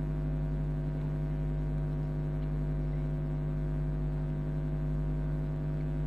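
Steady electrical mains hum: a low buzz made of several fixed tones that do not change.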